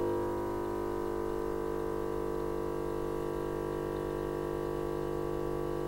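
Portable oxygen infusion unit's airbrush compressor running with a steady hum.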